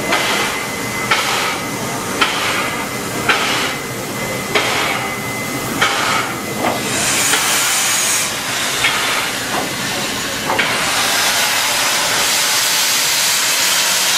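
New South Wales 36 class steam locomotive standing in steam: a sharp metallic knock repeats about once a second. From about two-thirds of the way in, a loud steady hiss of steam takes over, with steam blowing out low at the front of the engine.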